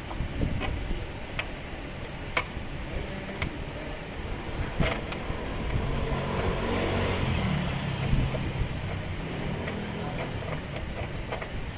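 A motor vehicle engine running nearby, swelling in level about halfway through and then fading. There are a few sharp light clicks, about one a second at first.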